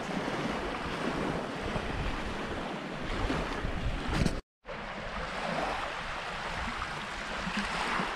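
Small waves washing on a sandy shore under steady wind rushing over the microphone. The sound cuts out completely for a moment about halfway through.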